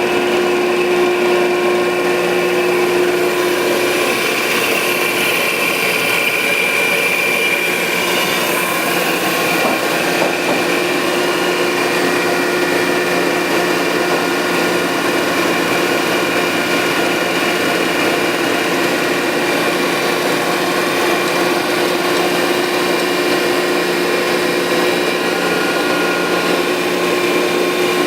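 Landis 1R universal cylindrical grinder running under power: a steady machine hum and whine with several held tones.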